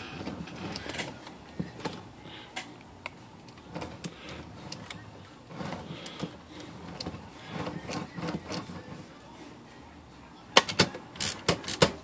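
Oliver No. 5 typewriter's carriage stepping and sliding under the pull of its newly reattached mainspring drawband: scattered light mechanical clicks and rattles, then a short run of louder sharp clicks near the end. The mainspring is working again and drawing the carriage.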